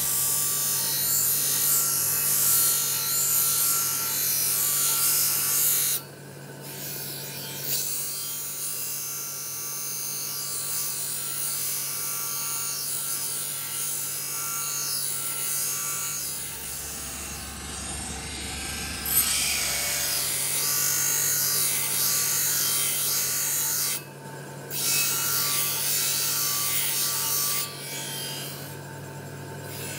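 Steel knife blade being ground on a large motor-driven grinding wheel: a steady hiss of steel against the abrasive over the motor's constant hum. The hiss drops out briefly a few times, about six seconds in, around twenty-four seconds and near the end, as the blade is lifted off the wheel.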